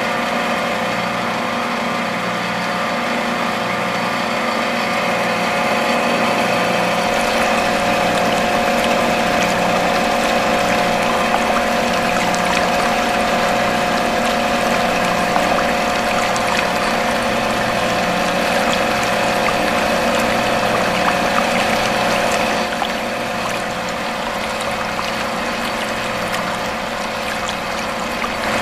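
Small electric motor running steadily with a whine, belt-driving a miniature water pump, while water pours from the pump's spout. The sound drops a little in level about three-quarters of the way through.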